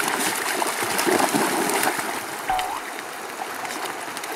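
Dogs wading through shallow water, their legs splashing and the water sloshing. A brief high squeak comes about two and a half seconds in.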